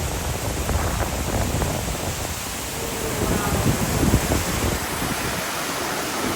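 Steady rushing of a waterfall and its stream, with a low rumble underneath that eases off about five seconds in.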